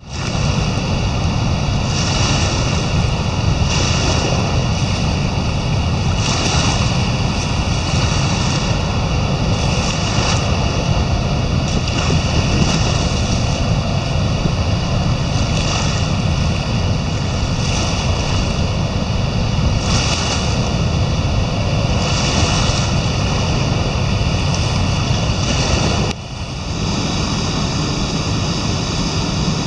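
Floodwater rushing through the wide-open spillway of the Jim Woodruff Dam and churning the river below: a loud, steady, deep rushing noise. Wind buffets the microphone, swelling every couple of seconds, and the sound dips briefly near the end.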